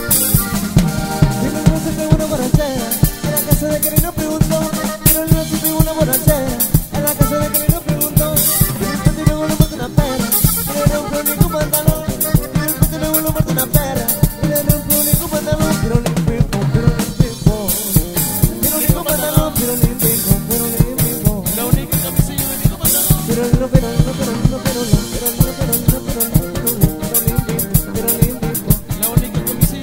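Live norteño band playing an instrumental passage: button accordion carrying the melody over a drum kit's steady beat, with electric bass and guitar.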